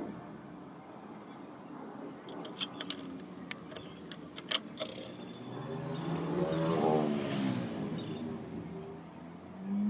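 Several light metallic clicks and taps as the steel axe head is shifted in the iron vise. Then, the loudest sound, a motor vehicle passes by in the background, its engine note rising and falling over a few seconds near the middle and end.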